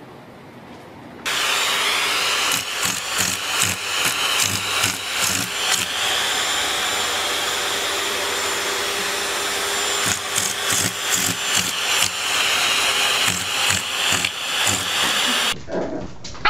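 Vacuum cleaner running with a steady whine, broken by irregular knocks and clatter against its hose. It starts suddenly about a second in and cuts off shortly before the end.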